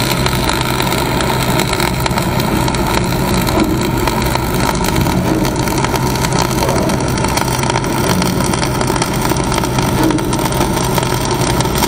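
Flux-core wire-feed welding arc crackling and sizzling steadily through one continuous bead, over a steady engine hum. The welder finds the heat and wire speed not quite dialed in.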